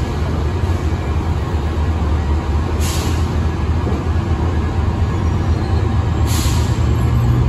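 Metrolink EMD F125 diesel locomotives running with a steady deep rumble, with short hisses of released brake air about three seconds in and again near six seconds. A low steady hum swells near the end.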